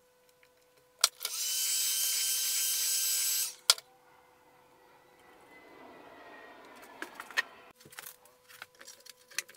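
Heat gun switched on with a click, blowing with a steady high-pitched hiss and whine for about two and a half seconds, then switched off with a click, softening bitumen sound-deadening tape. A quieter, lower hiss follows for a few seconds, then a few light handling clicks.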